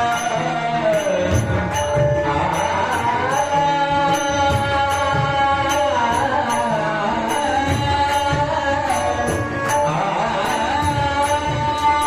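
Marathi devotional bhajan music: a sustained melody over low drum strokes, with a steady high clinking beat.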